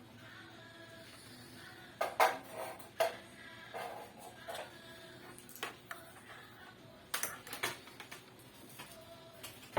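Irregular clicks and knocks of hard plastic and metal parts being handled on a sewing machine, about a dozen separate sharp taps with the loudest a couple of seconds in and a quick cluster after seven seconds, over faint background music.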